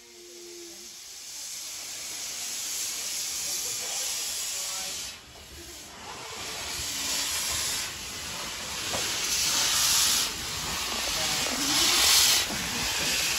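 Steam hissing from the open cylinder drain cocks of Talyllyn Railway No. 4 Edward Thomas, a Kerr Stuart 'Tattoo' class 0-4-2 saddle-tank locomotive, as it moves slowly past. The hiss grows louder and comes in surges, the strongest near the end.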